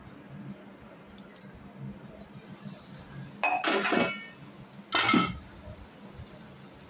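Glass pan lid with a metal rim being taken off a frying pan and put down: two loud clinks with a brief ringing, about three and a half and five seconds in.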